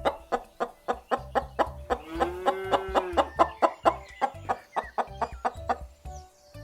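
Chicken clucking rapidly, about five clucks a second, with one longer drawn-out call about two seconds in, over background music.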